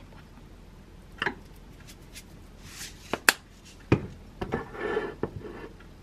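Kitchen handling sounds of utensils and dishware on a countertop. A sharp click comes about a second in and two more about three seconds in, then a dull knock about four seconds in. A brief rubbing noise follows as the ceramic bowl is moved and lifted.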